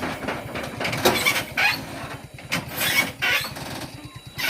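Hino truck's diesel engine being cranked by its starter motor after stalling on a steep climb, a rapid even chugging that does not catch. Several short, loud bursts of noise sound over it.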